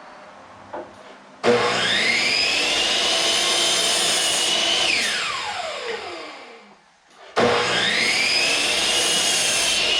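Corded power tool's electric motor starting with a rising whine, running steadily for about three seconds, then winding down with a falling whine; a second start follows about a second later and keeps running.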